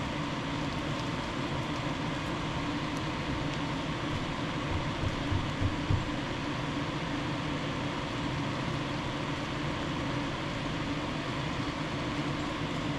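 Steady fan-like hum and hiss, with a few soft low knocks about five to six seconds in.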